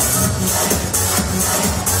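Loud electronic dance music with a beat.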